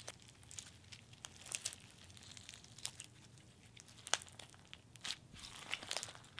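Java chip slime with foam beads being squeezed and kneaded by hand, giving scattered soft sticky clicks and crackles, with a few sharper pops about a second and a quarter in, just after four seconds, and near the end.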